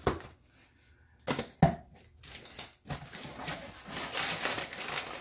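Cardboard shipping box being handled and opened by hand: two sharp knocks about a second and a half in, then a growing rustle of cardboard and packing paper.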